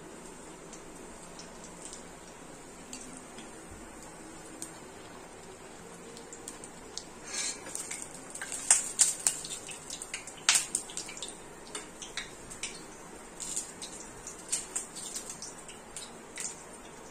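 Bread slices frying in hot oil in an iron kadhai with a steady faint sizzle. From about halfway, a perforated steel skimmer clinks and scrapes against the kadhai in a run of sharp knocks as a golden-fried slice is turned and lifted out.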